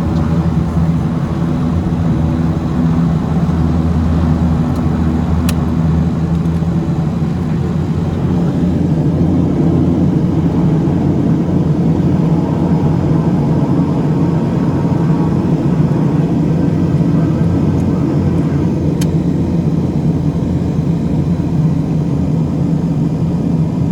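Beechcraft King Air's twin turboprop engines and propellers running with a steady low hum. About seven seconds in, the pitch pattern shifts as the engine power changes.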